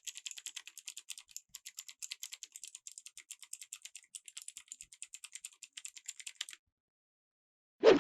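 Fast typing on a mechanical gaming keyboard in a sound check: a rapid, even clatter of key clicks, about ten a second, that stops about six and a half seconds in. A sudden loud sound starts right at the end.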